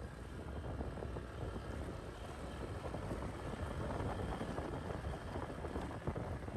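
Wind buffeting the microphone over the running engine and road noise of a Honda ADV scooter on the move, a steady rumbling rush with no distinct pitch.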